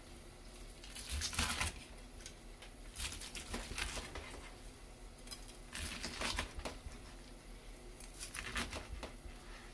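Kitchen knife slicing through a whole deep-fried chicken thigh (karaage), the crisp fried crust crackling and crunching with each cut; four cuts, roughly two and a half seconds apart.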